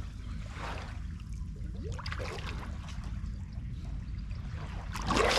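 Water sloshing and trickling as people in the water struggle to pull a catfish out of an underwater hole by hand, with a few small splashes, the biggest near the end, over a steady low rumble.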